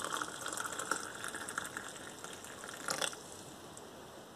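Water being poured into a ceramic mug over a spoon and spices, the pour strongest at first and tapering off after about two seconds, with a short click about three seconds in.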